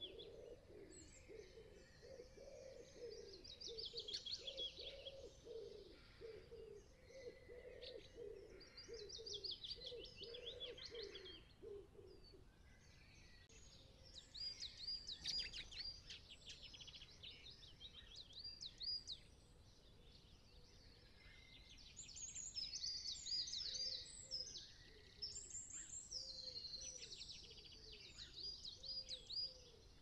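Quiet garden birdsong: several small songbirds singing in overlapping phrases of quick, repeated high chirps and trills, with softer, lower calls beneath them for the first twelve seconds and again near the end.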